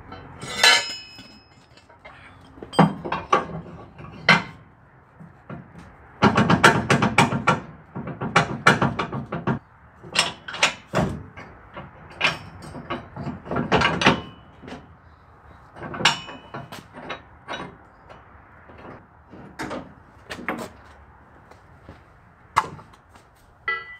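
Steel square-tube crane base clanking and knocking against a pickup's trailer-hitch receiver as it is slid in and fitted: a string of irregular metal knocks, some ringing briefly, busiest about six to nine seconds in.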